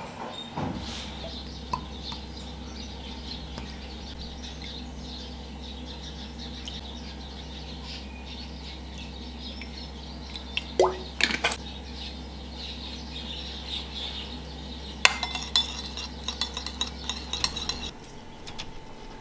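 Food-prep handling sounds: light clinks and taps of mussel shells and crockery on a wooden cutting board, with a short pour of soy sauce from a bottle into a ceramic bowl about halfway through and a quick run of clinks later on. A steady low hum runs underneath and stops shortly before the end.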